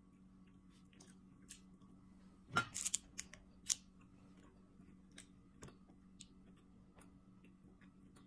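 Close-up chewing and small mouth clicks as a person eats, with a short burst of louder crackly noises between about two and a half and four seconds in.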